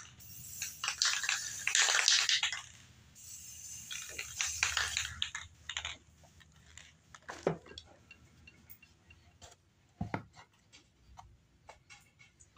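Clear coat being sprayed onto a painted replica fish in two hissing bursts of a few seconds each, followed by light clicks and knocks as the fish is handled and set down.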